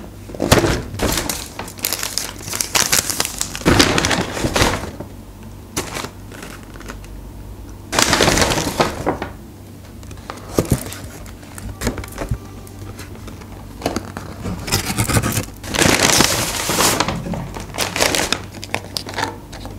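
Paper fast-food bags rustling and crinkling as boxes and wrapped food are pulled out and set down on the table, in bursts with short pauses. A low steady hum runs underneath.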